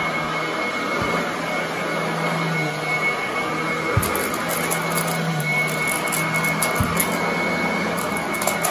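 Royal commercial upright vacuum cleaner running over carpet: a steady, high-pitched whine, which the owner calls screaming, over a low motor hum and the rush of air. There are a few short knocks as the head is pushed along, and light crackling in the second half.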